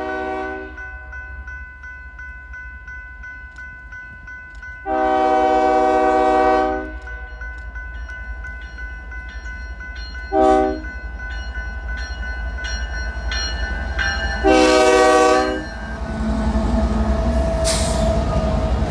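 Multi-chime air horn of a BNSF diesel freight locomotive. The tail of one blast ends just after the start, then come a long blast, a short blast and a final long blast, closing the long-long-short-long grade-crossing signal. Under the horn runs the steady low rumble of the moving train, which grows louder near the end.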